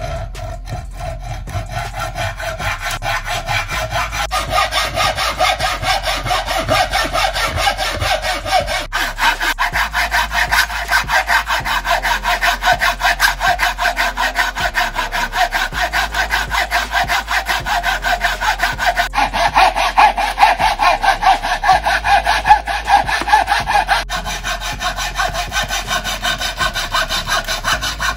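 Hand saws cutting through a wooden board, a thin-bladed coping saw and a hacksaw, with rapid, even back-and-forth strokes. The tone of the sawing shifts abruptly a few times.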